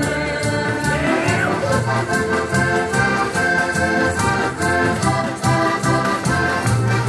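Several heligonkas, Slovak diatonic button accordions, playing a folk tune together with a steady beat, heard through the stage PA.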